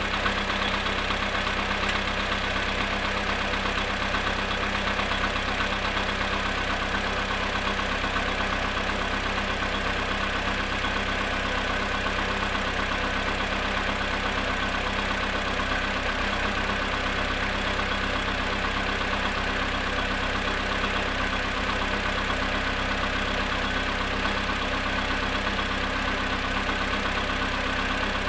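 Volkswagen Polo Sedan engine idling cold, at −2 °C after standing 22 hours, with a knock in the engine audible over the steady running.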